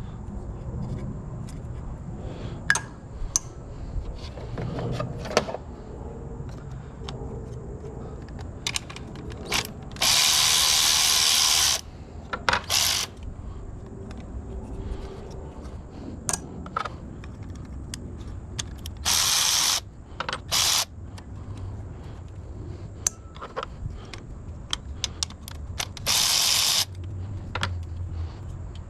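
Socket ratchet on a 10mm socket working an engine-bay bolt: several bursts of fast ratchet clicking, the longest about ten seconds in lasting nearly two seconds, others near 19, 20 and 26 seconds. Light clicks and taps of tools on metal in between.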